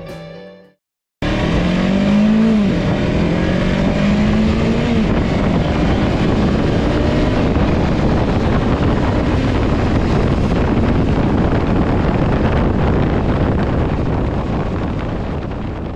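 Onboard sound of a Kawasaki Versys-X 300's parallel-twin engine under way, heard with a heavy rush of wind over the microphone. Starting about a second in, the engine note climbs, dips and climbs again over the first few seconds, then sinks under a steady rush of wind and road noise.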